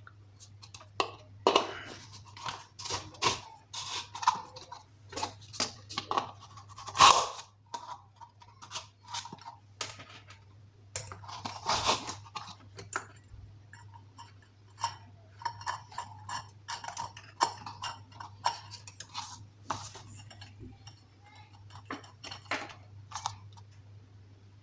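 Metal ceiling-fan parts being handled and fitted together by hand: irregular clinks, knocks and rattles, over a steady low hum.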